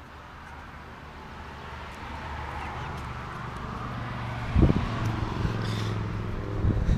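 Domestic hens clucking close by, with a low steady hum underneath. Two heavy low bumps come about four and a half seconds in and again at the end.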